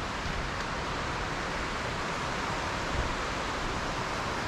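Steady rush of a creek and waterfall in high flow after heavy rain: an even hiss of water with no breaks.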